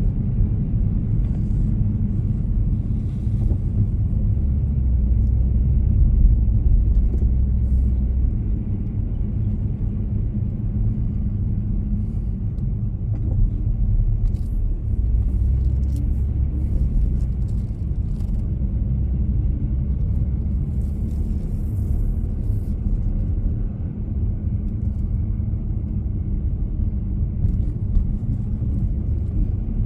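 Steady low rumble of a moving vehicle, road and engine noise with no sudden events.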